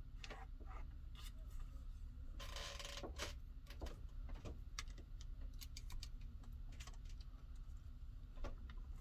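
Light handling sounds: scattered small clicks and taps, with a short rustle about two and a half seconds in.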